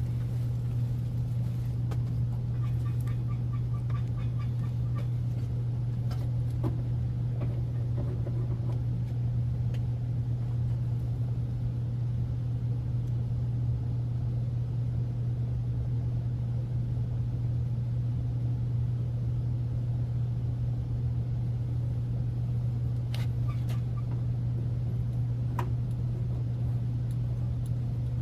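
A steady low machine hum runs throughout, with a few faint clicks and taps of work on top.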